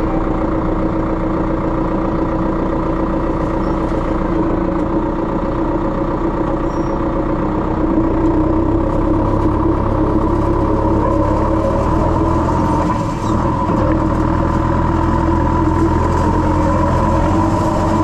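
Farm tractor engine running steadily under way, with a steady whine over it; the low engine sound grows stronger about eight seconds in.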